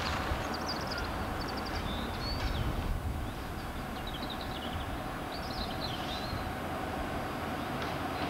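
Class 66 diesel locomotive's EMD two-stroke V12 engine running steadily as it draws a train of empty gypsum wagons slowly along the line, with small birds chirping in short bursts over it.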